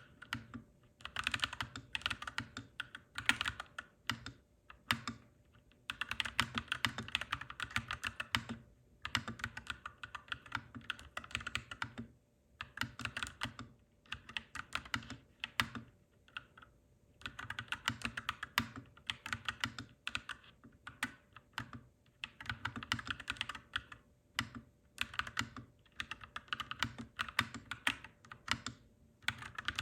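Clacky mechanical keyboard being typed on in fast runs of keystrokes, broken by short pauses every few seconds.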